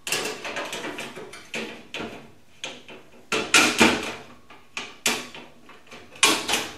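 Steel shelving beams of a boltless Monster Racks unit being worked loose and lifted out of the slotted steel uprights: a string of sharp metal knocks and rattles, loudest about three and a half seconds in and again near the end.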